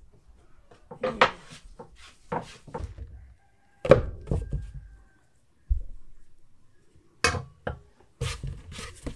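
Soft bread dough being pulled apart and slapped down on a floured wooden board: a series of dull thuds a second or two apart, the loudest about four seconds in.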